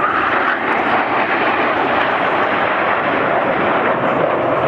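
A formation of Canadair NF-5 jet fighters flying past with the steady, loud roar of their turbojet engines.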